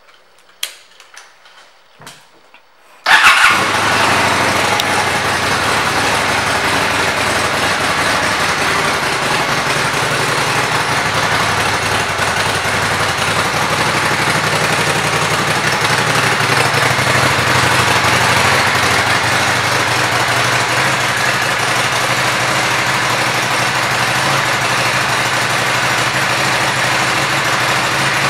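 2006 Honda Shadow VLX 600's 583 cc V-twin: a few faint clicks, then about three seconds in the engine starts and settles into a steady idle.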